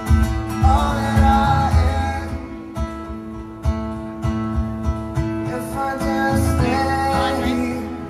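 Music: a song with guitar and a singing voice over a steady low beat.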